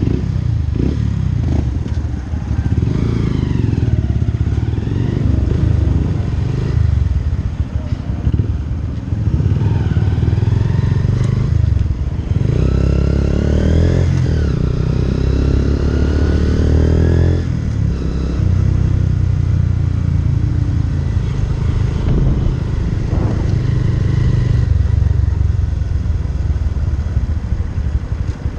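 Motorcycle engine running as the bike is ridden through town traffic, over a strong steady low rumble. Its pitch rises several times in the first half as it accelerates through the gears.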